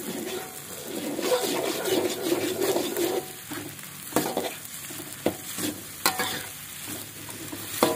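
Metal spatula scraping and knocking against a metal wok as sliced fish balls and scrambled egg are stir-fried over high heat, with a steady sizzle underneath. Several sharp spatula strikes on the pan come in the second half.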